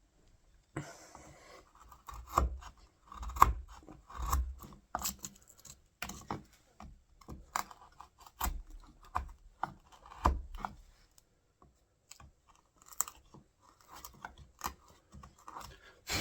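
Wood chisel paring and tapping out a door latch recess: irregular scrapes and crunchy cuts into the wood, with a few heavier knocks scattered through, clearing whatever is stopping the latch from fitting.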